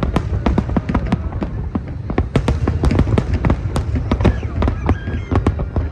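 Fireworks display: a rapid, irregular barrage of bangs and crackles, several a second, over a continuous low rumble.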